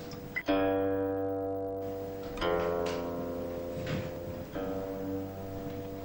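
Background music on a plucked string instrument: three slow notes or chords, about two seconds apart, each left to ring and fade.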